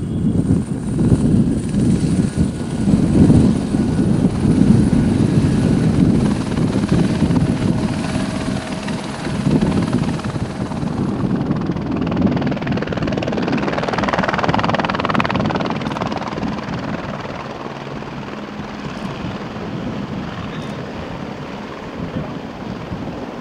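Light helicopters running: first a low, pulsing rotor sound, then, about twelve seconds in, a steadier rushing rotor and turbine noise from a helicopter hovering low, easing off slightly toward the end.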